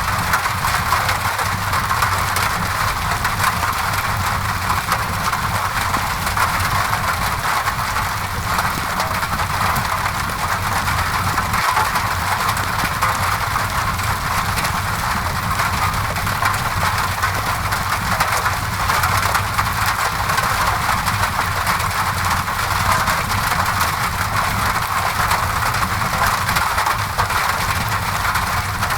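Steady rain against a window mixed with a crackling fireplace: an even, unbroken hiss with a low rumble beneath it and small crackles scattered throughout.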